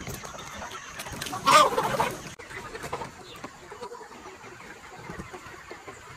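A flock of young chickens clucking, with one loud, short call about a second and a half in standing out over the background of scattered calls.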